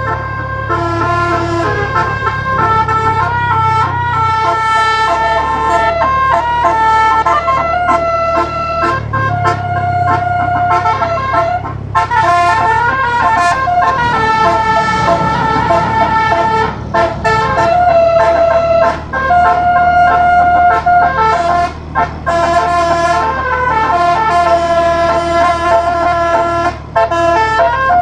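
Telolet basuri bus air horns, a set of tuned horn trumpets driven by a MIDI module, play a melody note by note, often several notes at once like chords. The tune pauses briefly a few times, and a low rumble runs underneath.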